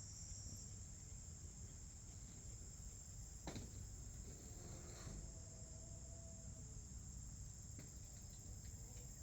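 Crickets chirring steadily at a high pitch, with a couple of faint knocks about a third and halfway through.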